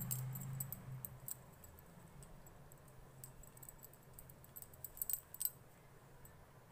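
Faint scattered clicks and rustles from hands working crochet thread, a steel crochet hook and a clear plastic wrapping, a little busier about five seconds in. A low hum fades out after the first second or so.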